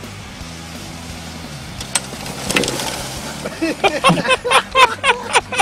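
Golf cart driving fast over bumpy grass toward the listener, with a low steady hum at first and a noisy swell as it comes close. About two-thirds of the way in, a rapid run of high, wavering squeals, about four or five a second, louder than the rest.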